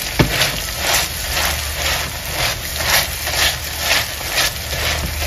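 Beans frying in lard in a skillet, sizzling, while a wire masher presses into them in rhythmic strokes about twice a second, with one sharp knock against the pan just after the start.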